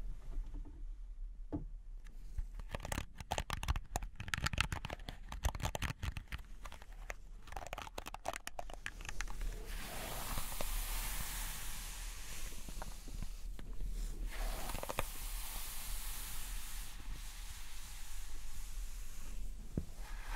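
Close-up rustling: a run of crackly clicks and scratches for several seconds, then a steady rustling hiss from about halfway in, as long hair brushes against the microphone.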